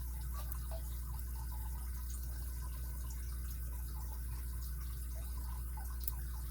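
Faint small clicks and taps of a lock pick working the pins in a padlock's 6-pin core under tension, with a sharper click about six seconds in, over a steady low hum.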